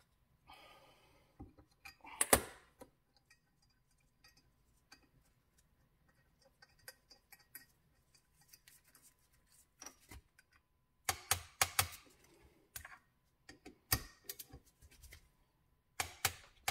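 Faint, scattered metallic clicks and taps of hand tools and bolts as parts are fitted and tightened onto a turbocharger's housing. There is a sharper click about two seconds in and a quick run of clicks near the middle and toward the end.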